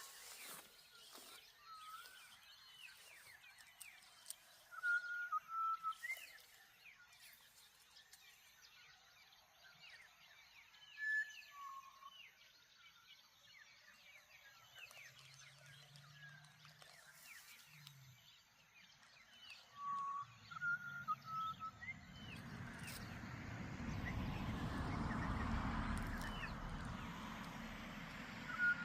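Morning birds calling: many small chirps, with one short whistled phrase repeated every few seconds. About two-thirds of the way through, a rushing swell of wind rises and holds under the birdsong.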